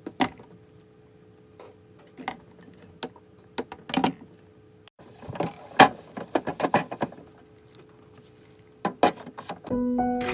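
Scattered clicks, knocks and clinks of household objects being handled, busiest a little past the middle, over a faint steady hum. Background music comes in near the end.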